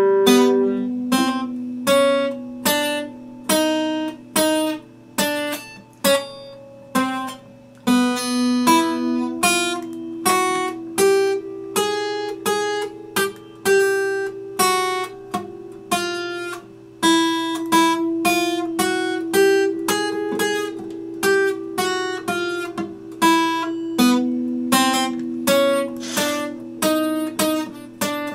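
Epiphone steel-string acoustic guitar played slowly, its chords and notes struck about once or twice a second and left to ring.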